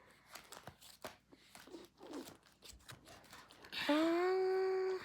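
Football cards and their packaging being handled, with soft crinkling and small clicks. About four seconds in comes a loud, held vocal sound from a child: one steady note lasting about a second.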